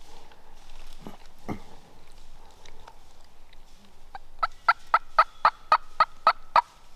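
Turkey yelping: a loud run of about nine evenly spaced yelps, roughly four a second, lasting a little over two seconds near the end.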